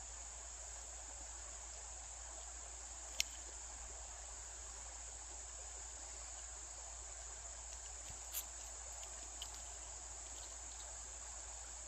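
A steady, high-pitched chorus of insects, with a sharp click about three seconds in and a few fainter clicks later on.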